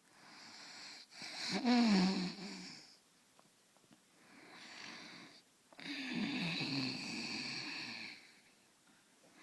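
A person snoring: two loud snores with a low buzzing tone, one about a second and a half in and a longer one about six seconds in, each preceded by a softer breath.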